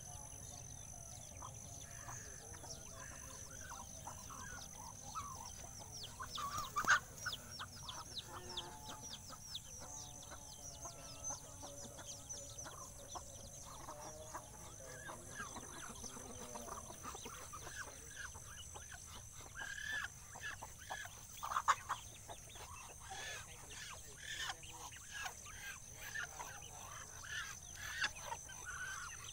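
Free-ranging chickens clucking and calling in short scattered calls, with roosters among them. A steady high drone runs underneath.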